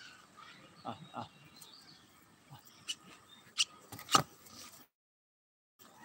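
A few sharp knocks and clicks over a faint outdoor background with faint bird chirps. The loudest knock comes about four seconds in, and then the sound cuts out completely for about a second.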